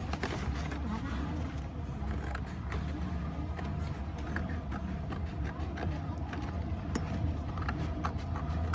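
Scissors snipping through a sheet of paper in scattered short cuts, over a steady low hum.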